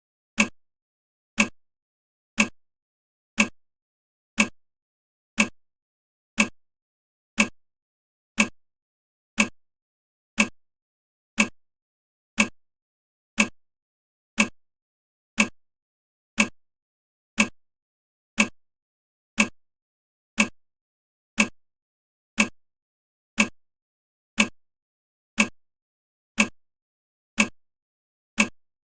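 Countdown timer's clock-tick sound effect, one short tick every second, evenly spaced and unchanging.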